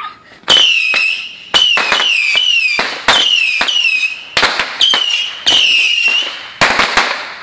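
Small ground firework going off in a quick series of about eight loud cracks, each followed by a short high whistle that falls slightly in pitch.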